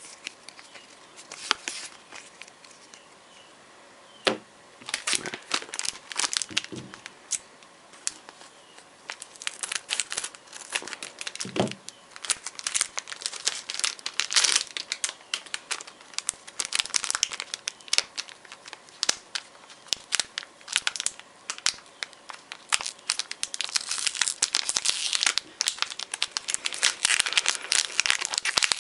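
Plastic packaging of a pack of Yu-Gi-Oh card sleeves being handled and torn open, crinkling and tearing. Only a few sharp crinkles in the first four seconds or so, then near-continuous crackling that grows denser toward the end.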